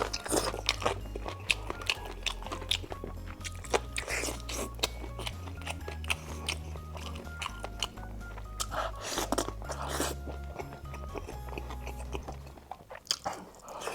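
Crunchy biting and chewing of deep-fried skewers, with many short crisp crunches, over background music with a steady bass line that drops out near the end.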